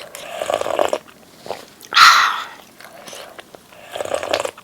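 Close-miked eating sounds from spicy seaweed-soup ramen: wet chewing, with one loud slurp about two seconds in and more chewing near the end.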